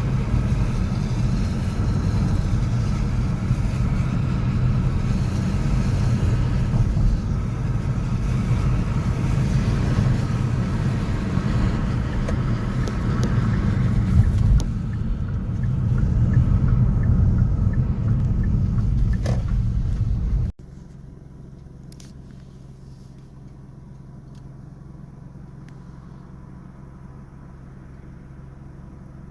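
City street traffic noise: a steady low rumble of passing cars. About two-thirds of the way through it cuts off suddenly to a much quieter, steady low hum.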